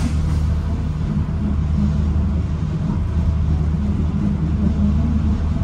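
Diesel commuter train heard from inside the carriage while it moves: a steady low engine drone with the rumble of the wheels on the track.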